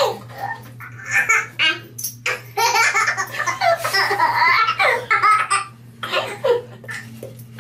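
A baby laughing hard in repeated bursts of belly laughter, over a steady low hum.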